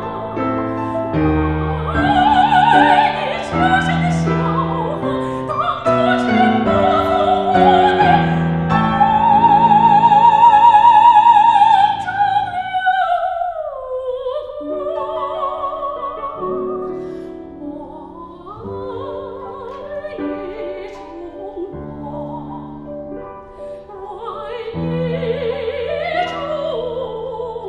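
Operatic soprano singing a Chinese art song with Steinway grand piano accompaniment, her voice in wide vibrato. About a third of the way in she holds a long, loud high note and then slides down from it into a quieter passage before the voice builds again.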